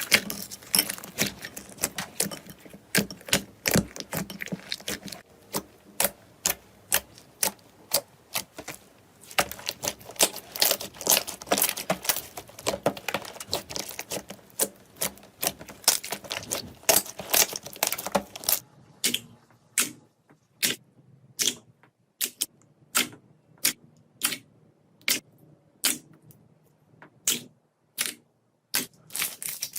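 Slime being squeezed and pressed, giving sharp popping clicks as air pockets burst. The clicks come thick and fast at first, then, after about two-thirds of the way, as single pops about once a second.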